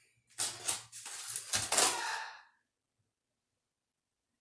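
A broken plastic eyeshadow palette being handled, giving a few rough clattering, rattling bursts that stop about two and a half seconds in.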